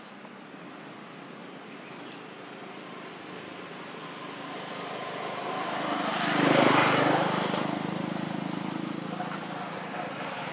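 A passing engine: a low hum that slowly grows louder, peaks about two-thirds of the way through, then fades again.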